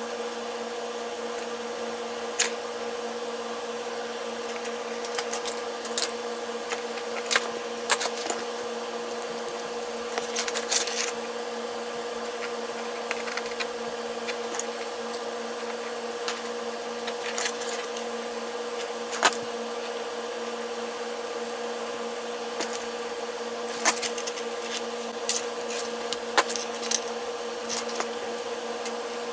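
Steady electrical hum with scattered sharp clicks and taps of small parts being handled.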